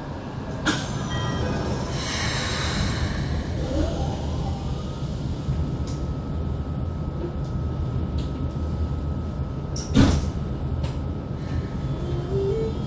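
Steady low hum inside a Keikyu N1000 train car standing at a platform, with a sharp knock about ten seconds in. Near the end the Siemens GTO traction inverter starts its rising stepped tones as the train begins to pull away.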